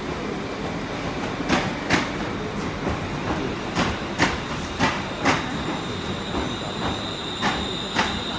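Class 350 Desiro electric multiple unit arriving along a platform: its wheelsets click over rail joints, mostly in quick pairs as each bogie passes, over a steady rolling rumble. A steady high whine comes in about halfway through.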